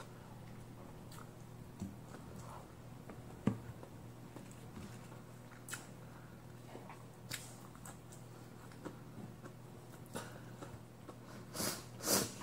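Quiet chewing and mouth sounds of a person eating rice and vegetables by hand, with scattered soft clicks and smacks over a faint low hum. Near the end come a few louder sniffs from a runny nose.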